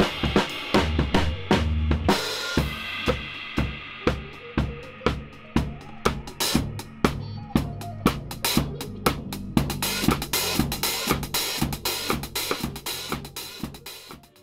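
Indie rock band playing, led by a drum kit keeping a steady beat on snare, bass drum and cymbals over bass guitar. The drumming gets busier in the last few seconds and then cuts off abruptly.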